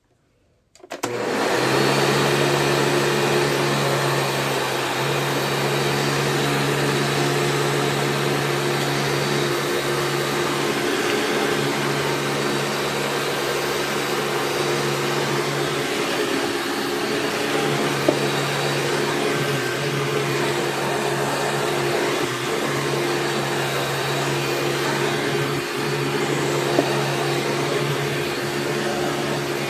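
Hoover PowerDrive Supreme upright vacuum cleaner switched on about a second in, then running steadily with a low hum as it sucks up shredded paper from the floor. There are two brief sharp ticks, about two-thirds of the way through and near the end.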